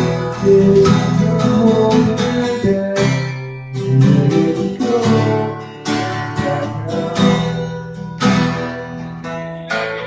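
Acoustic guitar played live, chords strummed about twice a second with ringing sustained notes.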